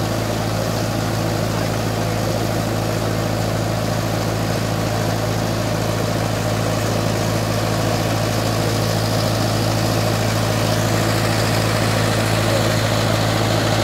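An engine idling steadily close by: a constant low hum that holds one speed throughout.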